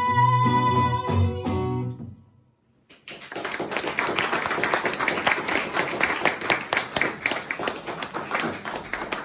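The last bars of a song for acoustic guitar, piano and a singer's held final note ring out and stop about two seconds in. After a moment of near silence, an audience applauds steadily.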